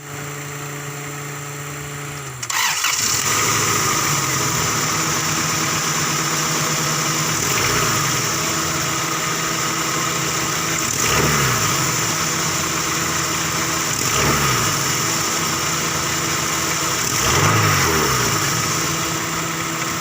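Honda Cielo car engine, unused for two years, cranking with a steady whine for about two seconds before it catches and runs. It then idles with a hiss and is revved briefly four times.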